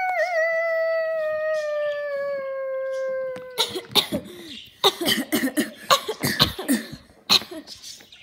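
A long wolf-like howl, one held call that slides slowly down in pitch and breaks off about three and a half seconds in. It is followed by a rapid string of short, sharp coughing sounds.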